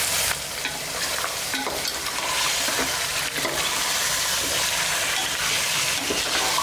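Raw chicken pieces sizzling and frying in hot oil with onion and ginger-garlic paste on high heat, as they are seared at the start of a biryani korma. They are stirred with a metal ladle in a metal pot, making a steady crackling hiss.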